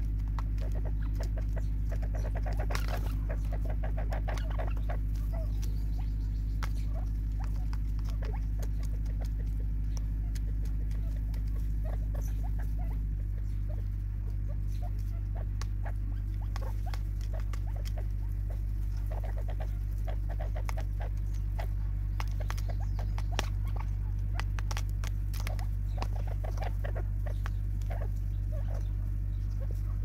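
Spurfowl beaks pecking at seed in a plastic tub, a scatter of quick sharp taps and clicks that come in bunches, over a steady low hum.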